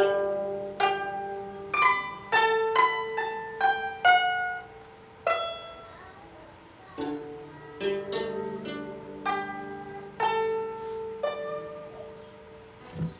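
Guzheng (Chinese zither) played solo: single plucked notes and short runs, each ringing out and fading. The notes thin out toward the end, with pauses between them, as the piece closes.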